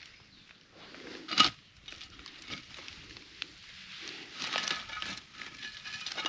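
Dry pine needles and twigs crackling and rustling on a forest floor as a rusted iron plate is handled and set down against a tree stump, with one sharp knock about a second and a half in.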